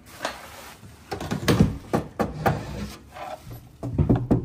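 Irregular knocks and thumps of hands handling the computer's case and the wooden crate: a run of knocks about a second in, and more near the end.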